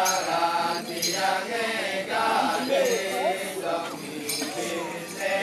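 Balinese Kecak male chorus chanting together in long, held, rising and falling lines.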